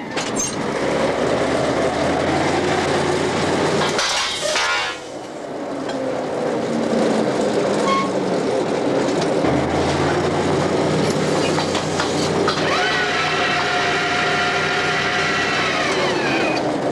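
Oil drilling rig machinery running on the drill floor: a steady, heavy mechanical din. A higher whine comes in about thirteen seconds in.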